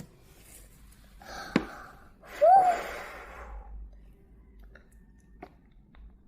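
A person sighs: a breathy exhale with a short voiced rise and fall of pitch, about two and a half seconds in, just after a brief hiss and a sharp click. A few faint small clicks follow.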